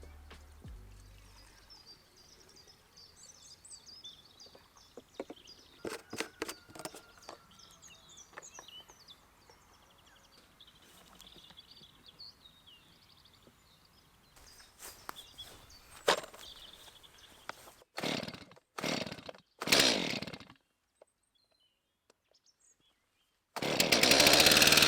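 Faint bird chirps and a few scattered knocks, then a Stihl chainsaw comes in loud and running near the end.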